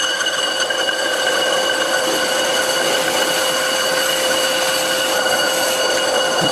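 Carbide insert facing a spinning cast iron brake disc on an old bench lathe at 200 RPM: a steady scraping cut with a high ringing tone and its overtones running through it. The lathe holds its speed under the cut without stalling.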